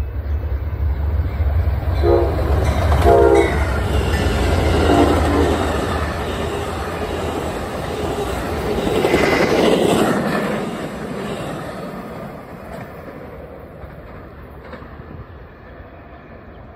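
Amtrak passenger train, a Genesis diesel locomotive hauling Superliner bilevel cars, passing through at speed. There is a low diesel rumble and two short horn blasts about two and three seconds in, then the wheels rolling over the rails, loudest around ten seconds in and fading as the train pulls away.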